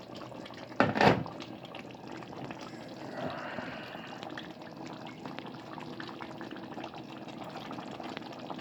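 Curry chicken gravy simmering in a pot: a steady bubbling crackle, with a brief loud knock about a second in.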